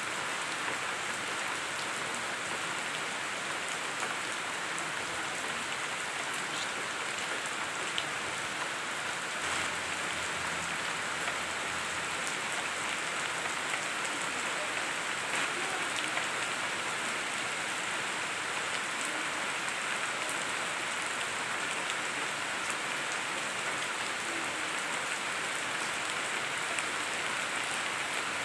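Steady rain falling on broad-leaved trees: an even hiss with an occasional sharper drop tick.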